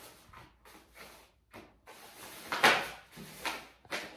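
Rummaging: a series of short rustles and knocks as items are handled and moved about, the loudest about two and a half seconds in.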